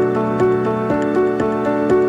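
Soft background music: gentle piano or keyboard notes about twice a second over a held bass.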